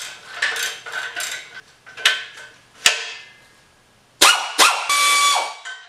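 Hand wrench working the nuts that hold the exhaust pipe to the manifold of a Jeep CJ7 inline-six: a run of quick metal scraping and clinking strokes, then sharp metal clanks about four seconds in, the last of them left ringing for about a second.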